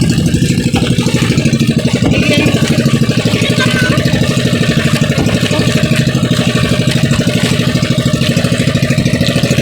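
Engine of a motorized outrigger boat (pambot) running loudly and steadily, with a fast, even chugging beat.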